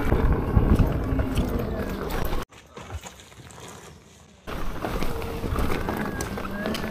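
KingSong S22 Pro electric unicycle ridden off-road: wind rushing over the microphone and knocks from rough ground, with a thin whine from the hub motor rising and falling. About two and a half seconds in the sound drops suddenly to a low murmur for two seconds, then comes back just as suddenly.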